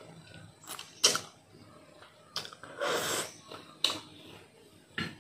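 Close-up eating sounds of instant noodles: a person slurping and chewing, with a few short sharp mouth or fork clicks, the loudest about a second in, and a longer slurp or sniff around the middle.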